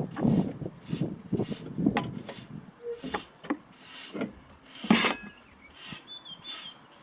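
Hand tools clicking, knocking and scraping on metal in irregular strokes, with one louder knock about five seconds in, as a Dometic RV refrigerator's gas burner is worked on for cleaning.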